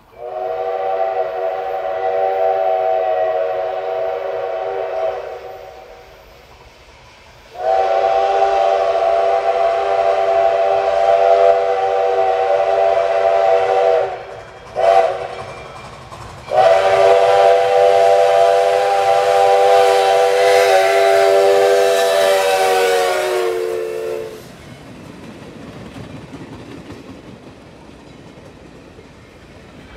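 The chime steam whistle of 1920 ALCO 4-6-2 steam locomotive No. 148 blowing the grade-crossing signal, long, long, short, long, a chord of several tones. Its pitch drops at the end of the last blast as the locomotive passes, then the train rumbles and clacks by on the rails.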